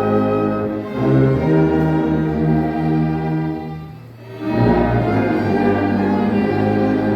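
Instrumental hymn played by an ensemble in slow, held chords, with a strong tuba sound in the bass. The music fades into a short pause between phrases about four seconds in, then the next phrase starts.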